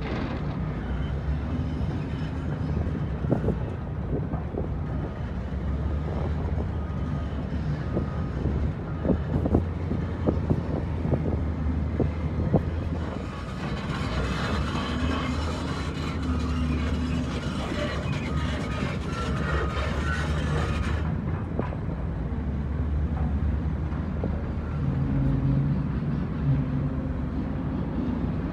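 Heavy diesel earth-moving machines running at work, a wheel loader and a Cat excavator, with a steady low engine drone throughout. From about three to thirteen seconds in come scattered knocks and clanks, and after that a stretch of hiss that stops suddenly about three-quarters of the way through.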